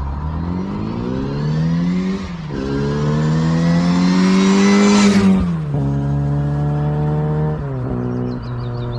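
Car engine accelerating hard through the gears. Its pitch climbs, then drops sharply at each upshift, about three times.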